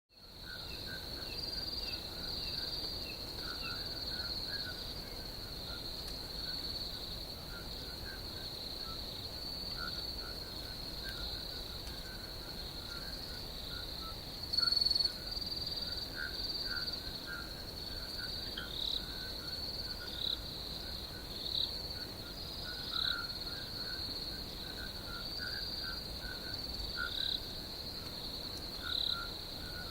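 Night ambience: a steady chorus of insects trilling high, with many short chirping calls, likely frogs, scattered throughout and one brief louder call about halfway. It fades in at the start.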